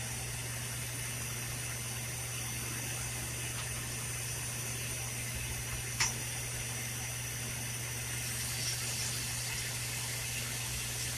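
Steady hiss of a lampworking bench torch flame burning, with a low steady hum underneath. A single short click about six seconds in.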